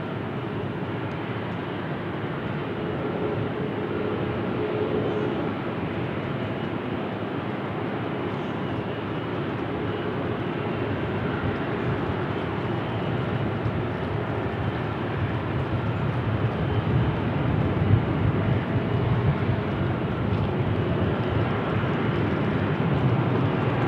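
Aircraft engines running: a steady rushing noise, with a low rumble that grows louder over the last several seconds.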